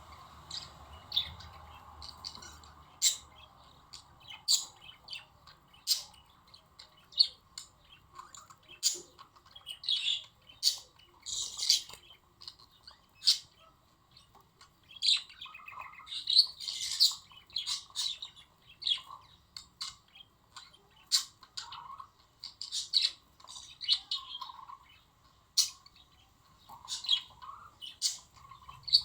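Budgerigars chirping and chattering: short, sharp, high chirps and squawks, coming every half second or so and thickening into busier bouts of chatter several times.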